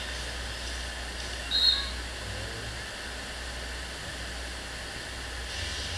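Steady rush of water pumped over an artificial flowboarding sheet wave, with a constant low pump hum beneath it. A short high chirp sounds about a second and a half in.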